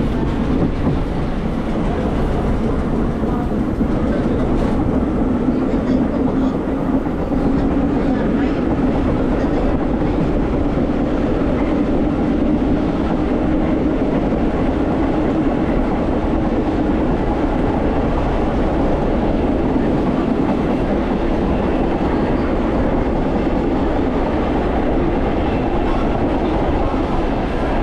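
Vintage BMT AB Standard subway train running along the track: a steady rumble of wheels on rails with a low hum that swells a little midway.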